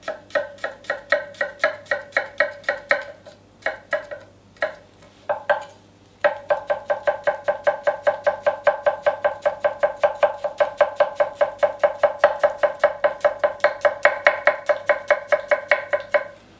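Chef's knife mincing garlic on an end-grain wooden cutting board: quick chopping strokes, uneven with short pauses at first, then a steady run of about five strokes a second that stops just before the end.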